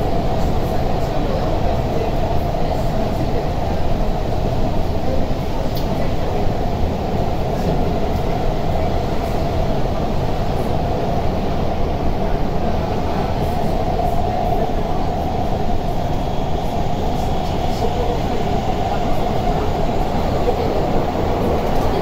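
Steady running noise from inside a Tokyu 5050 series subway car cruising through a tunnel: a continuous rumble of wheels on rail and car body, with no clear rise or fall in pitch.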